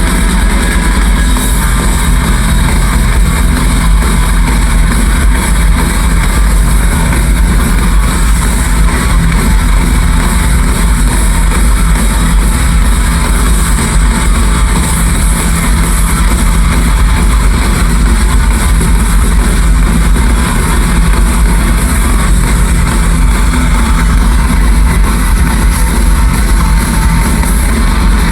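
Heavy rock band playing live with drums and electric guitars, loud and distorted, as if recorded close to the stage on an overloaded microphone.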